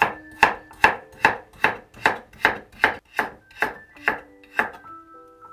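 Stainless steel Global chef's knife slicing a carrot thinly on a wooden cutting board: a quick, even run of crisp knife strikes on the board, about two and a half a second, stopping near the end.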